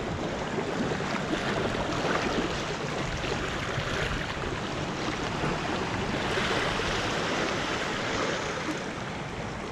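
Small waves washing and splashing against shoreline rocks: a steady rushing noise that swells about two seconds in and again past the middle.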